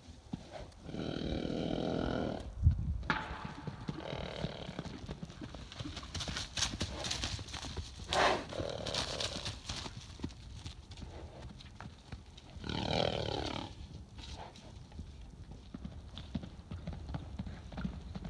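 Horses playing and galloping on open ground: hoofbeats throughout, with a heavy thud about three seconds in. There are horse whinnies about a second in and just after three seconds, a snort around eight seconds, and a whinny falling in pitch about thirteen seconds in.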